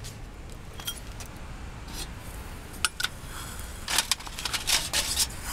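Light metallic clinks and scrapes of camp cookware being handled, a couple near the middle and a quick cluster about four seconds in, over a low steady rumble.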